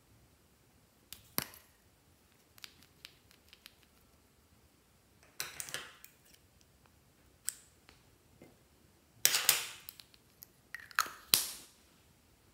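Handling of a plastic lip balm tube: a sharp click about a second in, a few light clicks, then short scrapes, the loudest two in the last few seconds as a piece of the balm goes into a glass dish.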